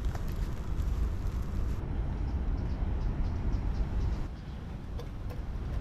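Steady low outdoor rumble of wind and sea, with a faint hiss of toast frying in a hot pan that thins out about two seconds in, and a few small clicks near the end.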